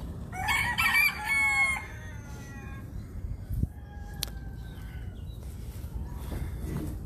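Rooster crowing once, a loud call of about a second and a half just after the start, over a steady low rumble. A single sharp click comes about halfway through.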